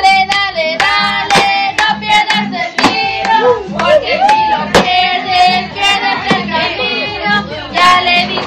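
Children and women singing together over music with a steady beat, with sharp clap-like hits scattered through.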